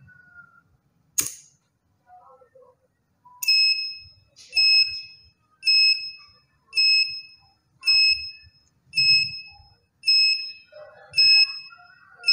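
Buzzer on a homemade flame-detector alarm beeping over and over, short high-pitched beeps about one a second. The flame sensor has detected a lighter flame held near it. A single click about a second in comes from the lighter being struck, and the beeping starts a couple of seconds later.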